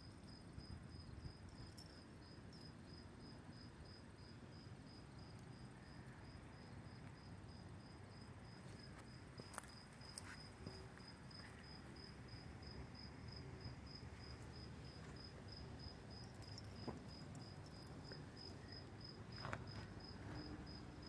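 Faint, steady chirping of crickets: one high note pulsed evenly several times a second, going on without a break.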